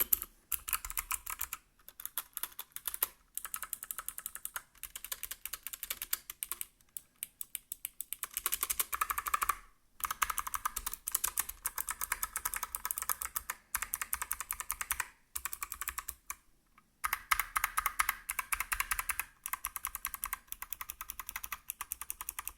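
Mechanical keyboard keys typed in fast runs of sharp clicks, with brief pauses about seven, ten and sixteen seconds in.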